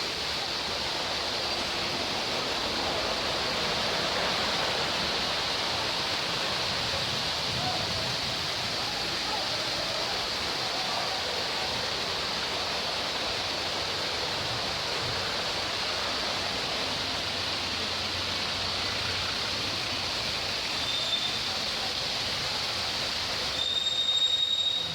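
Heavy rain pouring steadily, a constant hiss with no break. Near the end, a short high-pitched squeal rises over the rain.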